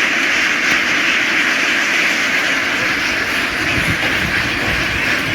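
A large flock of domestic ducks calling all at once, their many quacks blending into one steady, dense din.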